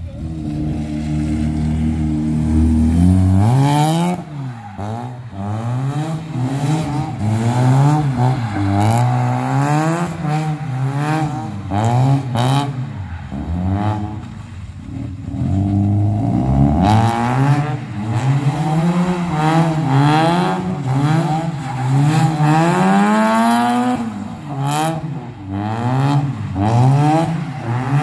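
Mazda RX-7 FC's 13B rotary engine revving hard while drifting. Its revs are held high and steady for the first few seconds, then rise and fall again and again, about once a second, as the throttle is worked through the turns.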